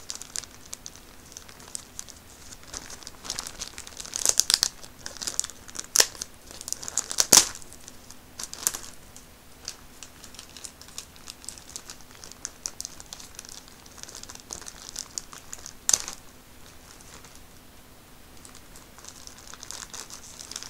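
White plastic mailing bag crinkling and rustling as it is pulled and twisted by hand in an effort to tear it open; the bag is strong and resists. Several sharper crackles stand out, the loudest about seven seconds in.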